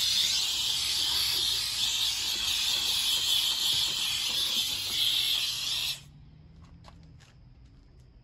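Grant's handheld steam cleaner jetting steam from its nozzle in a steady hiss, which cuts off suddenly about six seconds in, leaving a few faint taps.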